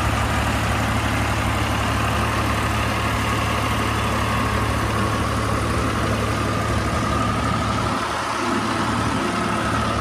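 Tractor engine idling steadily, a low constant hum, under a continuous hiss of heavy rain.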